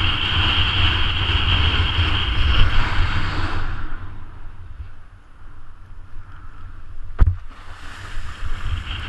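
Wind buffeting a kiteboarder's action-camera microphone, with water rushing under the board as it rides chop, loud and with a steady high whistle at first. About four seconds in it drops to a quieter hiss, a single sharp click comes about seven seconds in, and the loud rush comes back near the end.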